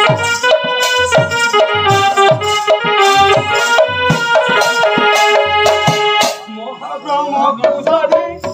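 Live folk dance music: a reed keyboard instrument, harmonium-like, holds chords over a steady beat of hand-drum strokes. About six seconds in, the held chords and drum drop away, leaving a lighter, busier run of notes.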